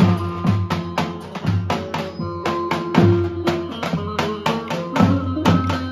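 Live Turkish folk dance music: a davul, the large double-headed drum, beaten in a quick steady rhythm of about four strokes a second, under a melody of held notes.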